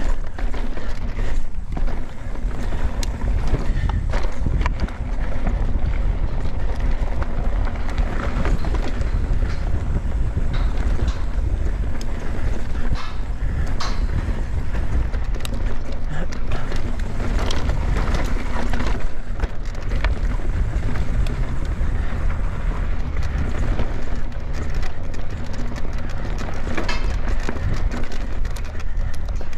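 Mountain bike ridden fast down a dry dirt trail: tyres rolling over dirt and roots, with frequent clicks and knocks of the chain and frame rattling, over a steady low wind rumble on the microphone.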